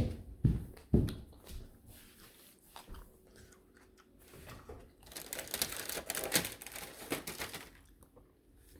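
Two dull thumps about half a second and a second in, then from about five seconds in a few seconds of crinkling and rustling as something is handled.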